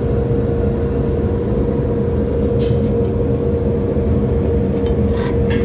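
Steady machine drone with a constant hum over a rough low rumble, with a couple of faint clicks.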